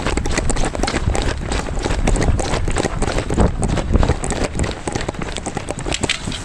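Quick footsteps on a concrete pier, heard through a body-worn camera as a rapid run of thuds with a low rumble under them.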